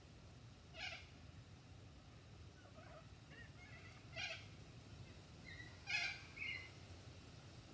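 Short meow-like calls, about four of them a second or two apart, the loudest about six seconds in, with fainter short chirps between.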